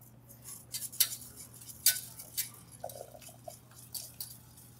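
Wire whisk stirring in a stainless steel saucepan, its wires ticking irregularly against the pan while egg-yolk mixture is whisked into warm milk.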